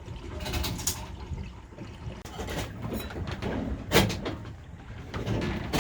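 Water swishing and trickling, broken by a few sharp knocks.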